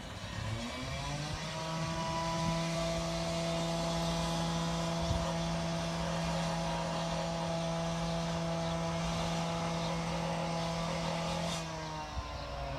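Electric radio-controlled glider's motor and propeller whining overhead at a steady pitch. The pitch climbs about a second in as the motor spools up, then falls away near the end as it winds down.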